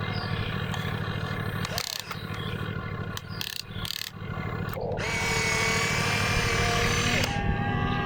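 Electric motors and drives of radio-controlled construction models whining over a steady low hum. A higher whine sets in about five seconds in and shifts pitch near the end.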